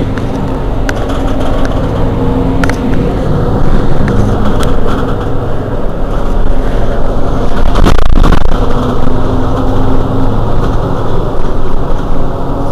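Mercedes-Benz Citaro G C2 articulated city bus idling at a standstill, its rear-mounted engine giving a steady low hum. There is a short burst of noise about eight seconds in.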